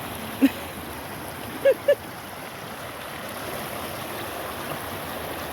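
Shallow creek water running steadily. A short sharp sound comes about half a second in, and two brief pitched blips just before two seconds.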